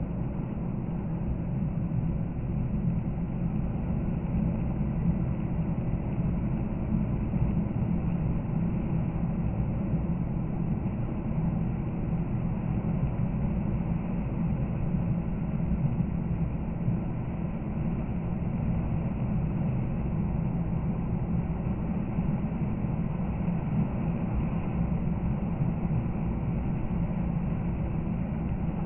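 Steady road noise inside a car's cabin while driving at about 80–95 km/h on a snow-covered expressway: the engine and tyres running evenly, with no sudden sounds.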